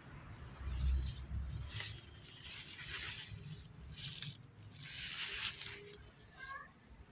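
Rustling of potato leaves and stems as a hand pushes through the foliage to the base of the plants, in two longer spells, with a low thump about a second in.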